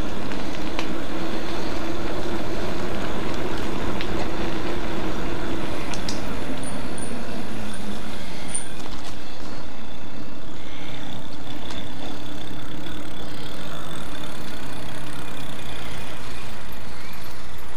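Electric bike ridden along a tarmac path: steady wind rush on the microphone and tyre noise, with a motor hum that drops in pitch about halfway through and a few light knocks.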